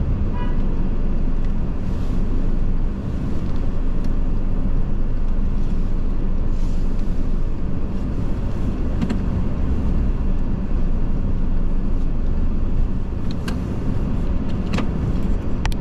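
Steady low rumble of a car on the road, engine and tyre noise heard from inside the cabin, with a few sharp clicks in the last seconds.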